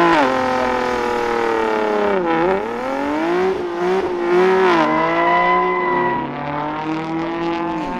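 Infiniti coupe's engine held at high revs during a burnout, with its rear tires spinning. The pitch sags twice and climbs back.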